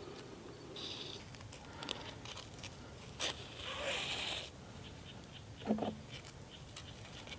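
Soft rustling and scraping of nylon mesh netting as a needle and thread are worked through it by hand, with scattered small clicks. A longer hissing rustle, as thread is drawn through, comes a little past halfway, and a short low thump follows a couple of seconds later.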